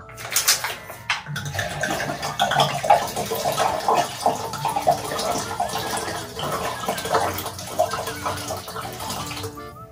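Mezcal glugging out of an upturned full 750 ml glass bottle into a blender jar, filling it to the top. A few knocks in the first second, then a steady gurgling pour that stops just before the end.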